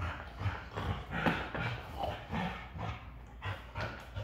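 A dog making short, repeated play vocalisations, about three a second, while it tugs and mouths a toy.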